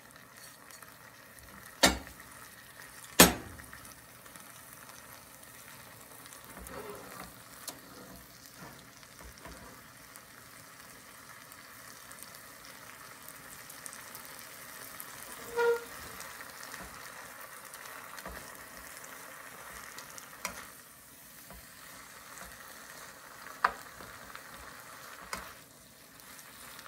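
Cabbage and mushrooms sizzling in a hot frying pan as they are stirred. A few sharp knocks sound over it, the two loudest in the first few seconds.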